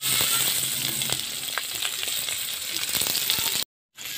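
Green chillies sizzling in hot oil in a kadhai: a steady hiss with a few sharp clicks. It cuts out for a moment near the end, then starts again as a spatula begins stirring.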